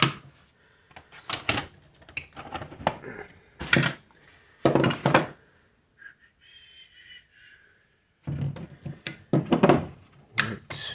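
Irregular knocks, clicks and thumps of plastic parts and packaging being handled and set down, in several clusters with a quieter stretch in the middle.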